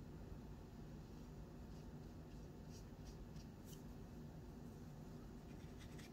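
Faint paintbrush strokes on paper: a few short, soft scratches about two seconds in and again near the end, over a low steady hum.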